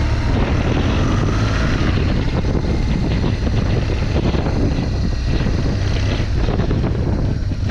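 BMW R 1200 GS boxer-twin engine pulling steadily as the motorcycle climbs a dirt track: a steady low engine drone under a rush of wind and loose-surface noise.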